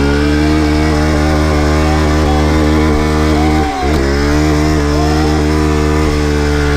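Off-road motorcycle engine revved hard and held at high, steady revs, dipping briefly about halfway through.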